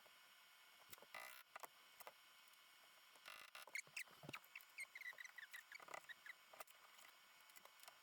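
Faint scattered clicks and knocks with runs of short, high squeaks, typical of hand work fitting suspension parts: bolts, bushings and tools being handled.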